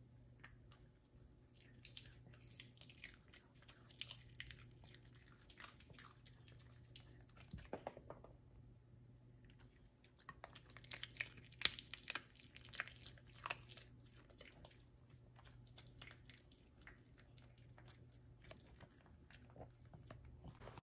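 Chinese crested dog chewing and crunching food in its bed: faint, irregular crunches and clicks in two busy spells, with a lull of about two seconds near the middle.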